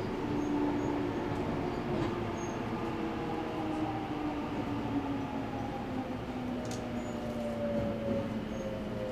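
Electric train's traction motors whining in a slowly falling pitch as the train brakes into an underground station, over steady running noise heard from inside the carriage.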